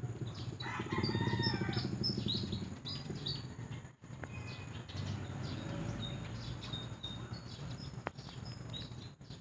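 Outdoor bird calls: a drawn-out call like a rooster's crow about a second in, then short high chirps from small birds, over a steady low rumble.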